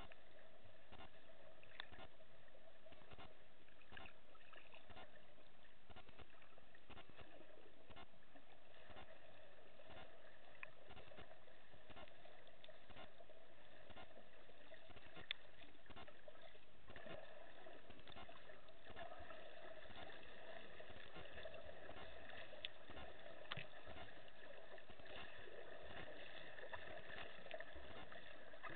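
Muffled underwater sound picked up by a camera in a waterproof housing: a steady low hiss of water with scattered faint clicks and ticks.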